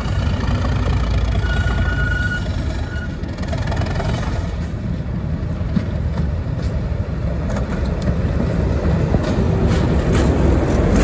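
Class 37 diesel locomotive's English Electric V12 engine running as it hauls coaches past, getting louder as it draws close near the end.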